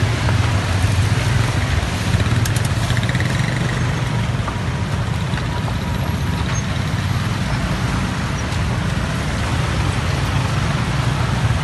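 Slow traffic of motorcycles and small vans creeping past close by, their engines making a steady low rumble.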